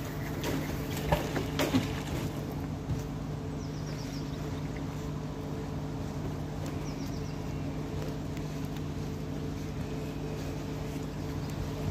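Magnet-fishing rope being thrown out and hauled back in by hand, with a few sharp knocks and rustles about one to two seconds in. Under it runs a steady low mechanical hum.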